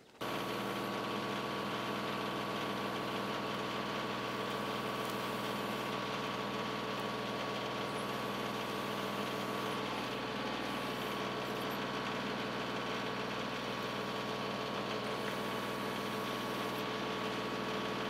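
TYM 2515 compact tractor's diesel engine running steadily at an even speed while it drives the backhoe attachment digging a trench.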